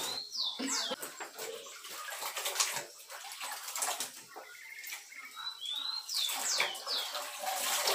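Broom scrubbing a wet concrete floor in repeated rough swishing strokes with water. A bird calls twice, near the start and again about six seconds in, each time a short whistle followed by quick falling whistles.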